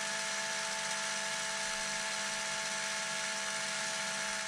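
Cordless drill running at a steady speed with a constant whine, spinning a Traxxas X-Maxx Cushdrive hub on its shaft to check it for wobble, which the owner suspects comes from a bent shaft tip.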